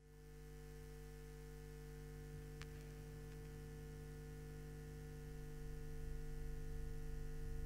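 A steady electric hum made of several held low tones, with one faint click a little over two seconds in; it slowly grows louder over the last few seconds.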